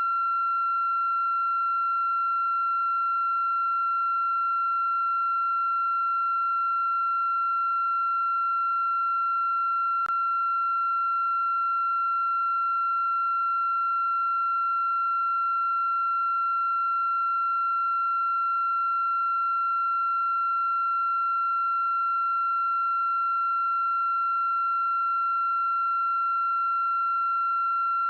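A steady, unbroken high-pitched electronic tone at a single pitch with fainter overtones, and one faint click about ten seconds in.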